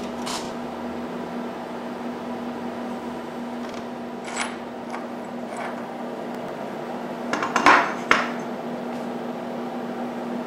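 A steady low hum with a few light metal clinks, then a cluster of louder knocks about three-quarters of the way through, as steel workpieces (a threading die and a turned steel tube ring) are handled and set down on a wooden bench.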